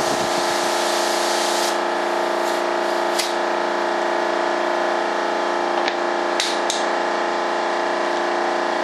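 Air compressor running with a steady multi-tone hum. A paint spray gun hisses over it for the first second or two, then stops. A few light clicks and knocks follow.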